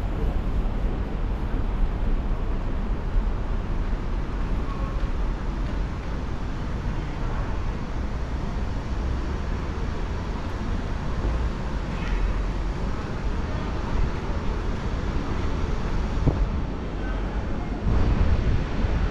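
Wind rumbling on an action camera's microphone over steady outdoor background noise, with no distinct events; it gets a little louder near the end.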